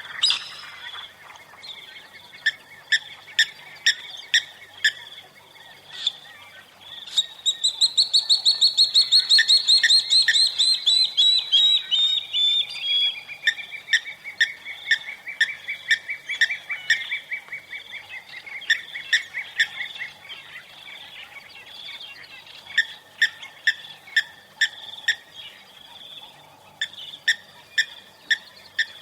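Forest ambience of wild birds calling: short sharp chirps repeated in quick runs, and about a quarter of the way in one long series of rapid notes that falls steadily in pitch for about ten seconds and is the loudest call, all over a steady high-pitched hum.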